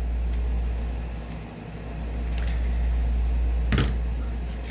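Scissors snipping through plastic rhinestone mesh ribbon: a few faint clicks, then one sharper snip a little before the end. A steady low hum runs underneath.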